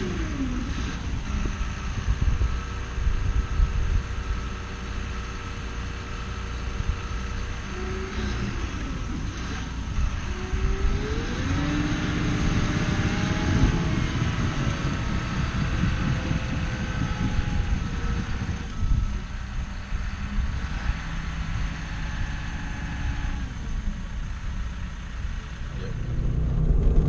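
A motor vehicle driving, its engine running under a steady low rumble, the engine pitch rising and falling and climbing about halfway through.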